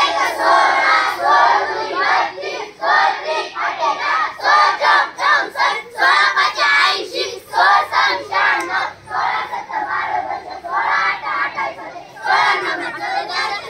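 A large group of schoolchildren chanting multiplication tables aloud in unison, in a steady sing-song rhythm.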